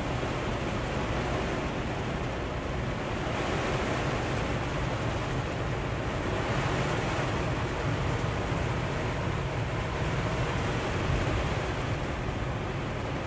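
Heavy rain pelting a truck cab's windshield and roof, a steady rushing hiss with a low steady rumble underneath, growing a little heavier about three and a half seconds in.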